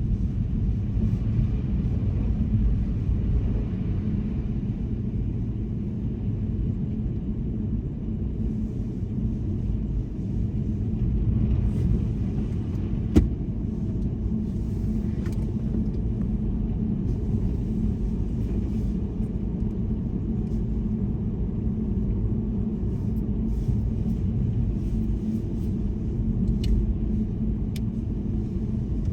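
A car driving, with a steady low rumble of engine and road noise and a single sharp click about 13 seconds in.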